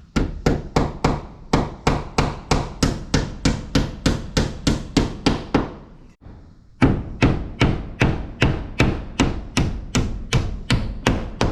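Hand hammer driving nails through T1-11 plywood siding into a wall stud: two long runs of quick, even blows, about four a second, with a short pause about six seconds in.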